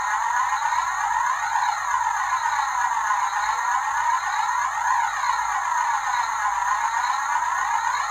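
Electronic siren wailing, its pitch swinging up and down in a steady cycle about every one and a half seconds.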